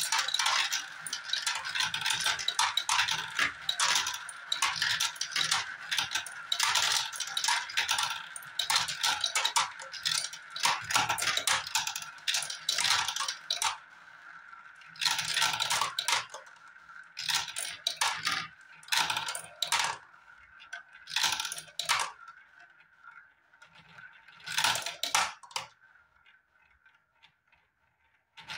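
Small balls rolling around the translucent plastic funnel bowls of a toy marble run and dropping down its tubes into a tray: a dense clatter of clicks over a steady rolling hum. It thins to scattered clicks and dies away near the end as the last balls drain.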